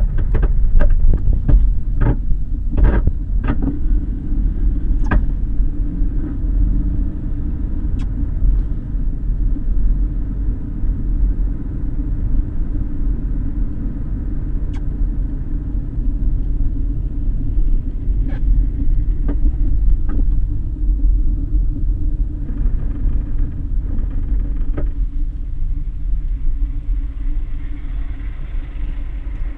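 Lada Vesta on the move: a steady low rumble with sharp knocks from under the hood, several in quick succession in the first few seconds, then a few scattered ones. The knocking comes from a broken right engine mount.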